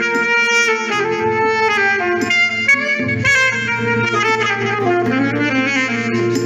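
Saxophone playing a smooth-jazz melody over a recorded instrumental backing track with a steady bass line.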